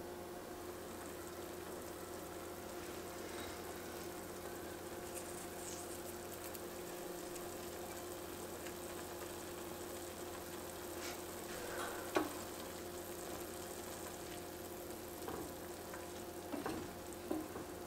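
Ground pork simmering and sizzling in chicken stock in an enameled cast-iron pan, a steady bubbling hiss with a faint steady hum underneath. A wooden spatula stirs and knocks against the pan about twelve seconds in and several times near the end.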